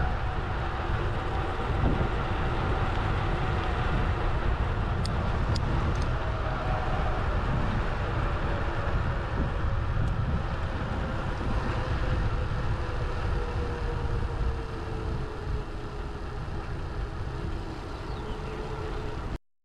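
Wind buffeting the action camera's microphone and road noise from travelling along a street, with a faint tone that slowly falls in pitch. The sound cuts off abruptly near the end.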